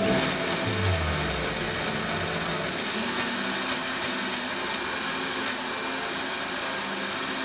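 Countertop blender switching on and running steadily, blending strawberries into ground almonds and cashews.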